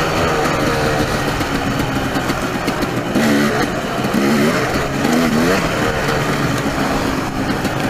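Dirt bike engine ridden on a rocky trail, heard from on board, its pitch rising and falling several times as the throttle is opened and closed.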